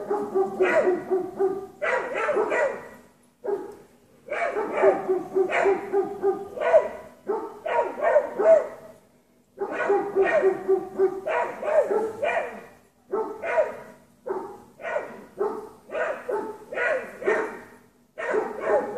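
Dogs barking at a mountain lion: rapid runs of excited barks in bouts of a few seconds, broken by short pauses.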